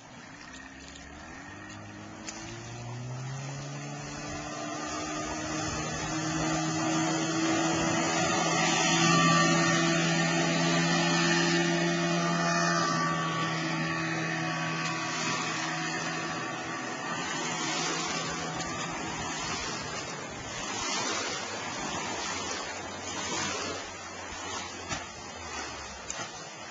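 Outboard motor (a 1983 Johnson 35 hp) on a small fishing boat. It speeds up in the first few seconds with its pitch rising, then runs steadily at speed and is loudest around ten seconds in as the boat passes. The engine tone fades after about sixteen seconds, leaving wave wash and splashing.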